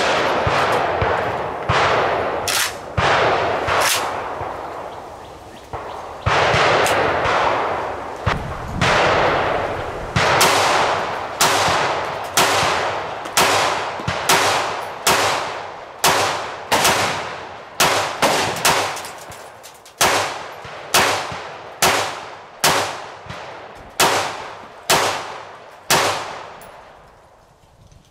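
Gunfire: single shots, a few scattered ones at first, then a steady string at about one every two-thirds of a second, each crack followed by a long echoing tail.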